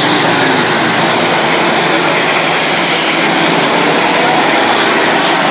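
Race pickup trucks towing boats around the track at speed: a loud, steady wash of engine and tyre noise.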